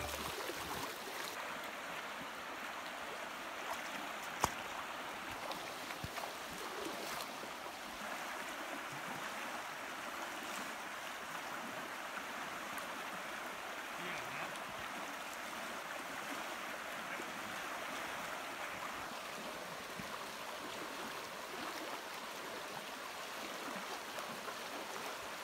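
Shallow river water rushing steadily over riffles, with one sharp click about four seconds in.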